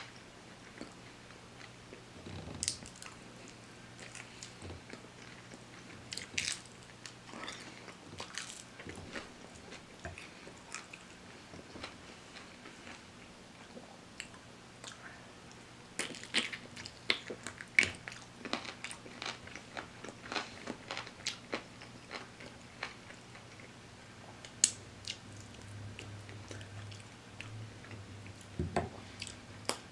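Close-miked eating of crispy fried chicken: bites and chewing with short crackly crunches, coming in clusters, busiest about halfway through.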